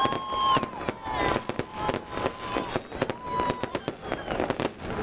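Fireworks display: a rapid, irregular run of bangs and crackles, with a few held high tones over them.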